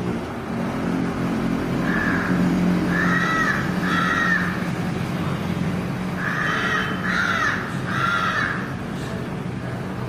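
Crow cawing in two sets of three caws, the second set following a couple of seconds after the first, over a steady low hum.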